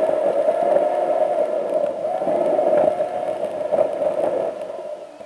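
Car driving sound sped up by the time lapse into a steady droning whine that wavers and glides in pitch. It fades down near the end.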